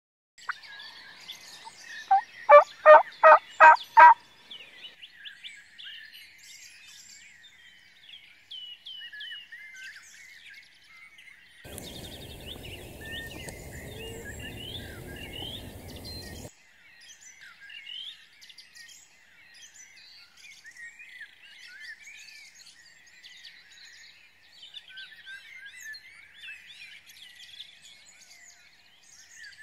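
Songbirds chirping and singing, with a turkey's loud series of about six quick, evenly spaced calls about two seconds in. Near the middle there are a few seconds of low rustling noise.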